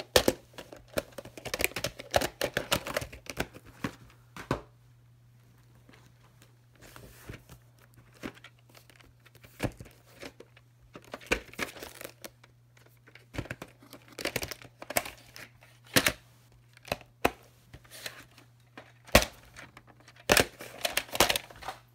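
Plastic clamshell VHS cases being handled: irregular clicks, knocks and rustling as cases are picked up, flipped over and opened.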